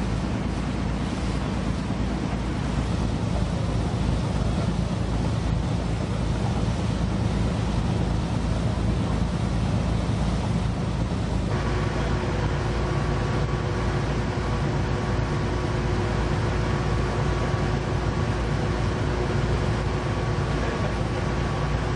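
Steady engine drone of a river cruise boat, with wind buffeting the microphone. About halfway through the sound changes abruptly and a few steady higher tones join the drone.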